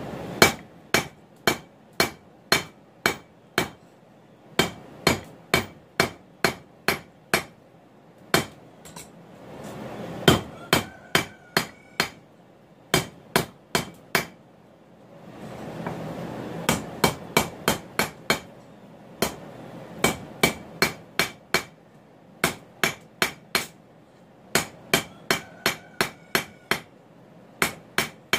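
Hand hammer striking a red-hot mild steel bar on an anvil, about two blows a second in runs with short pauses between, each blow ringing briefly. The bar's tail is being drawn out to a taper.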